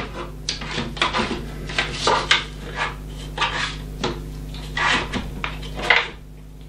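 Plastic drive tray with a hard drive being handled and slid into a drive bay of a Synology DS918+ NAS: a busy run of hard clicks, clacks and scrapes as it goes in and seats.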